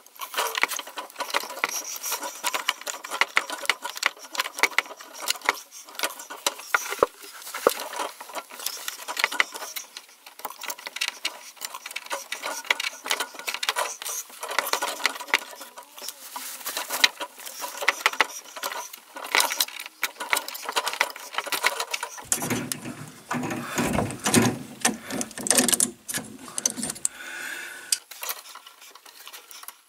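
Mini tubing cutter being turned round and round a copper water pipe, played back sped up: a fast, continuous run of clicking and scraping as the cutting wheel scores through the copper. About two-thirds of the way in the rattling turns heavier and deeper for a few seconds.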